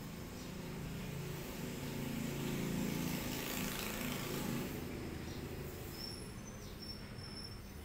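A passing vehicle in the background, its low rumble swelling to a peak around the middle and fading again. A few short, high bird chirps come near the end.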